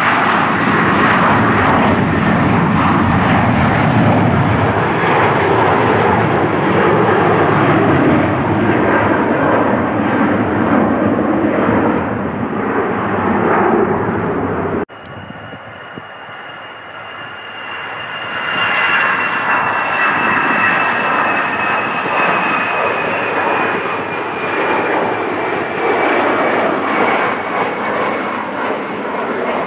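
Jet engines of an Airbus A330 climbing out after takeoff, a loud steady roar. Halfway through it cuts off abruptly to a quieter jet: an Airbus A320-family airliner climbing away. That roar swells a few seconds later, with a high engine whine slowly falling in pitch.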